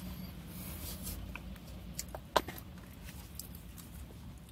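Small clicks and rustles from handling a plastic mayonnaise jar and sandwich in a car cabin, with one sharp click about two and a half seconds in, over a steady low hum.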